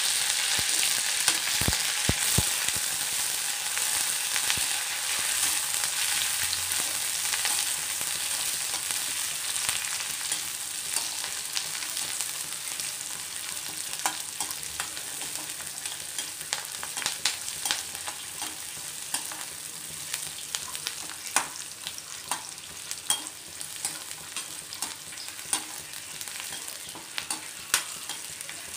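Chopped onion and curry leaves sizzling in hot oil in a kadai, stirred with a metal slotted spatula that clicks and scrapes against the pan. The sizzle is strongest at first and slowly dies down, while the spatula clicks come more often in the second half.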